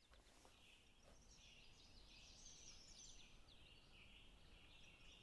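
Near silence, with faint bird chirps high in pitch throughout.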